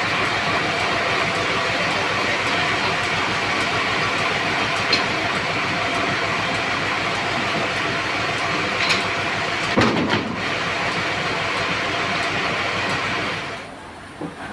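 Sawmill running, its saw cutting through a large trembesi log: a loud, steady mechanical noise with a few sharp knocks. It drops away sharply about a second before the end.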